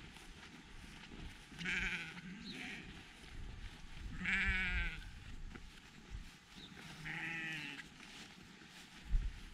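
Sheep bleating three times, each a wavering baa; the loudest call comes about four seconds in. A brief low thump near the end.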